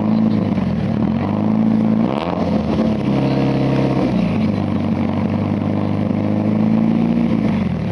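Lancia Delta rally car engine revving while stationary: pitch rises and falls several times, held higher from about two to four seconds in, then settling back down.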